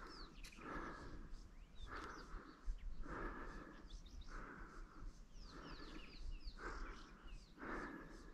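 A person breathing hard close to the microphone, about one breath a second, with small birds chirping in short descending notes in the background.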